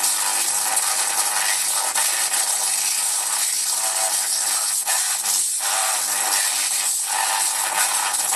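Audio-modulated solid-state Tesla coil's spark arc playing music: a steady, harsh buzzing hiss with faint notes running through it.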